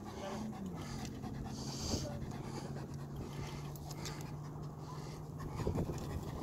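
German Shepherd dog panting. Under it runs a steady low hum that drops in pitch about a second in.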